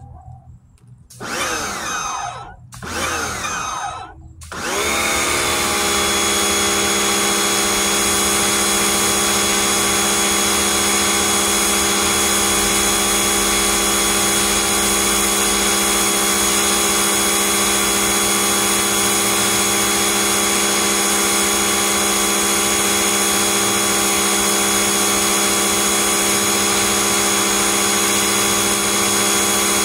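A pressure washer sprays at concrete. It starts twice in short bursts that rise and fall in pitch, then, from about four and a half seconds in, runs steadily with a constant whine over the hiss of the water jet.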